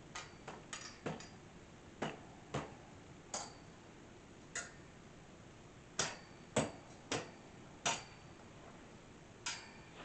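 Chrome-plated steel wire shelves and poles of a shelving cart clinking and knocking against each other as the shelves are handled and fitted, about a dozen sharp irregular knocks, some with a short metallic ring.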